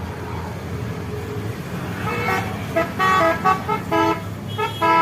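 A bus's telolet horn, a multi-trumpet musical air horn, playing a quick tune of short notes at changing pitches, starting about two seconds in, over steady engine and road noise.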